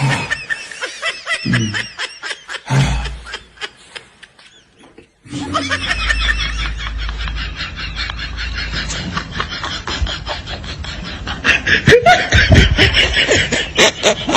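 People laughing and snickering, in two stretches with a short break about five seconds in; the second stretch is noisier, with a low rumble under it.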